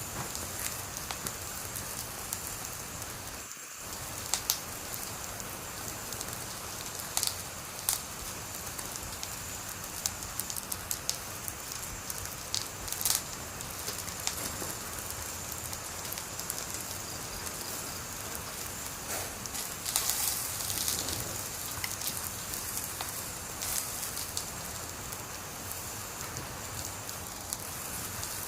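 Wood fire burning: a steady hiss with irregular sharp crackles and pops, which come thicker about twenty seconds in.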